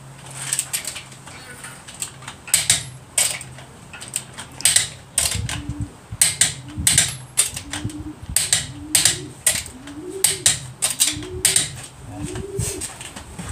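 Ratchet wrench clicking as the wheel nuts are run down and tightened, with sharp irregular clicks at first. From about five seconds in, it settles into a regular back-and-forth stroke about every 0.7 s, each with a short rising squeak.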